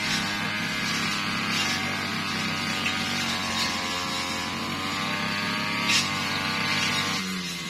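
Brush cutter engine running at high speed, then throttled back about seven seconds in, its pitch falling as it slows. A sharp knock about six seconds in.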